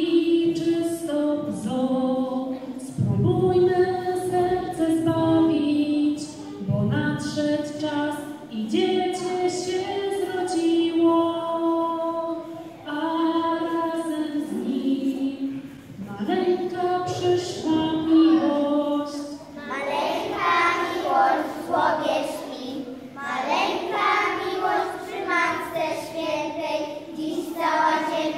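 A woman singing through a microphone with a group of children's voices singing along. About two-thirds of the way through the children's singing becomes fuller and louder.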